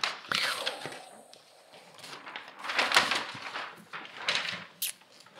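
Large sheets of drawing paper rustling and sliding across a desktop as they are flipped over and laid flat, in a few separate swishes.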